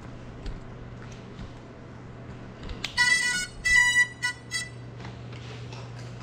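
A short run of about four buzzy electronic beeps, starting about three seconds in and lasting under two seconds, over a steady low hum.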